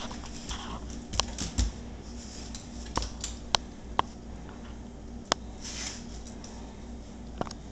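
Irregular sharp clicks and taps: a quick cluster about a second in, then single ones every second or so, over a faint steady hum.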